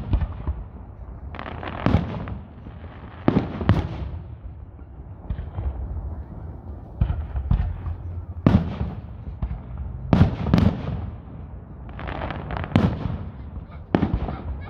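Aerial firework shells bursting in quick succession, about a dozen sharp bangs roughly one to two seconds apart, with a low rumble between them.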